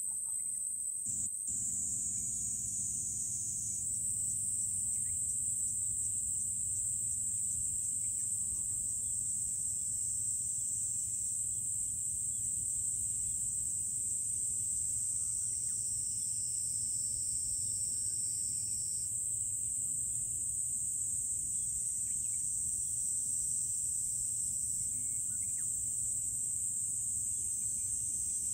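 A steady, high-pitched chorus of insects in summer trees, over a steady low rumble.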